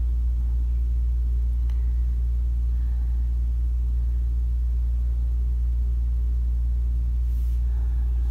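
A steady low hum with a deep rumble underneath and no change in level.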